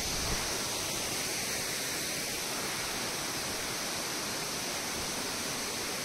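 A waterfall in strong rainy-season flow, water pouring steadily down a rock face into a pool below.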